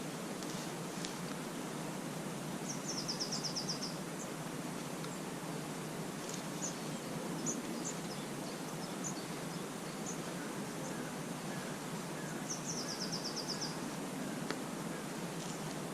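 Steady outdoor background noise with a small bird singing: a short, rapid trill of high notes twice, about ten seconds apart, and scattered single chirps in between.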